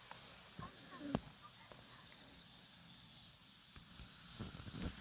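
Quiet outdoor ambience: a steady faint high insect trill, with a few light clicks and knocks, the loudest about a second in.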